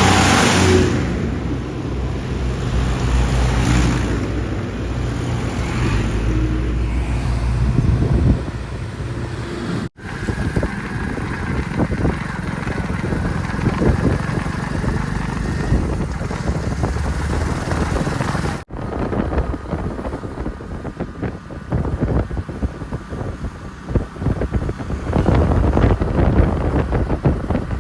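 Diesel engine of a JCB 3DX backhoe loader running under load while digging and loading mud, with knocks and clatter from the work. The sound drops out briefly twice where the footage is cut.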